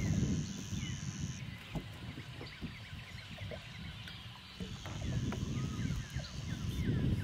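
Many small birds chirping together in a steady chorus, with a thin high buzz that sounds for the first second and a half and again for about two seconds near the end, over a low rumble that swells at the start and toward the end.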